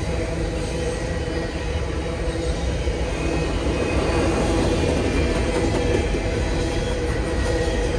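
Freight train's double-stack container well cars rolling past on steel wheels, a steady unbroken rolling noise of wheels on rail with a faint steady whine.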